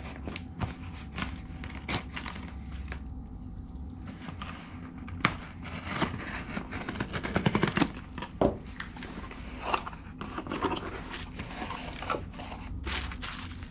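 Pocket knife slitting the packing tape on a cardboard shipping box, with short scrapes and clicks, tape tearing and cardboard rustling. Near the end the flaps are pulled open and plastic wrapping crinkles.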